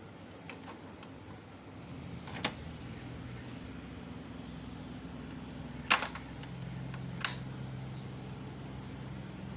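A low mechanical hum that starts about two seconds in and shifts in pitch around six and a half seconds, with three sharp clicks: one about two and a half seconds in, one near six seconds and one just after seven.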